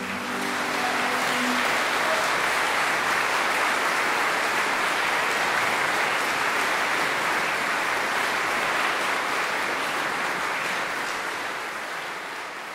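Audience applauding steadily as the last orchestral note dies away, the applause fading out near the end.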